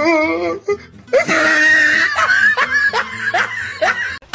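A person laughing in high, wavering squeals, breaking off briefly and then going on shriller and louder from about a second in, until it cuts off near the end.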